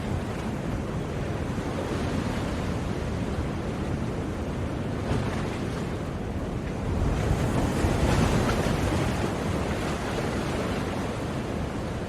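Ocean surf: waves breaking and washing in a steady rush, one wave swelling louder about seven seconds in and then easing off.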